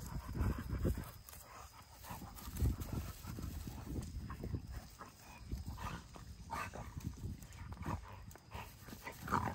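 Several pit bull–type dogs wrestling on a grass lawn: scuffling and irregular thuds of paws and bodies, with dog noises mixed in.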